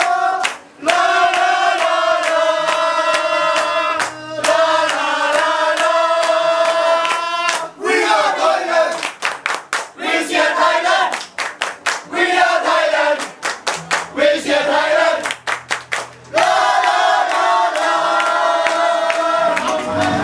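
A group of football supporters singing a cheer song together in unison, with long held notes. In the middle it breaks into short chanted phrases with brief gaps between them, and the held singing then returns.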